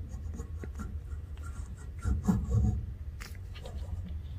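CV axle's splined stub shaft being worked into a steering knuckle against a plastic hub stand-in: light rubbing and scraping with small clicks, busiest about two seconds in, during a trial fit to check clearance.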